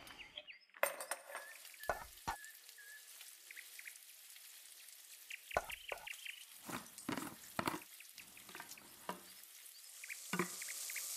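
Food sizzling in a pan on the stove, a steady hiss that grows louder near the end, with scattered clicks and knocks of a jar and utensils being handled.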